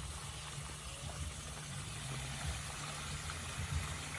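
Water from a newly rebuilt pondless waterfall starting to run down its rock spillway: a steady rushing hiss over a low, uneven rumble.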